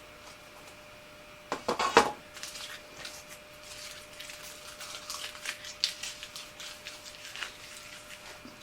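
A few sharp knocks and a clatter about a second and a half in, then a run of light scrapes and taps as a small engraved plate is handled on the bench, over a faint steady hum.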